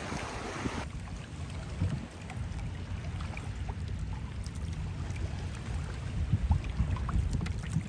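Water splashing and dripping around a kayak being paddled, over a low, uneven wind rumble on the microphone. A steady rush of wind noise cuts off abruptly about a second in.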